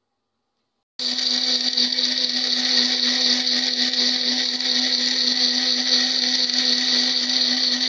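Electric blender running steadily at one speed, blending soaked poppy seeds, almonds and peppercorns with water into a milky drink. It starts suddenly about a second in and keeps a constant hum with a hissing whir.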